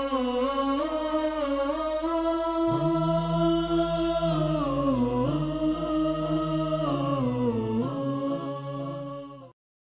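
Vocal music: singing voices holding long notes and stepping between them, with a lower voice joining about three seconds in, cutting off suddenly near the end.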